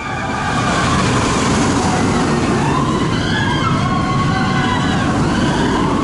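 A steel roller coaster running on its track: a loud rumble that swells in the first second and then holds, with high wavering wails over it.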